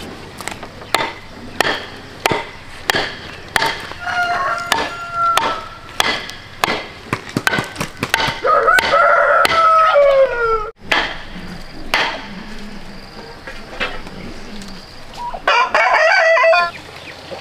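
Sharp wooden knocks, about one to two a second, from work on a bamboo fence, while a rooster crows: a shorter crow about four seconds in and a loud, long, falling crow about nine seconds in. Near the end a turkey gives a short rapid gobble.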